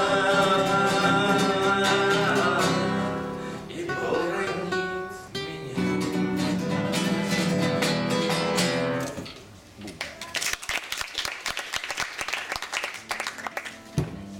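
The song ends with a held sung note over acoustic guitar, followed by a few strummed closing guitar chords. About nine seconds in, the music stops and the audience applauds.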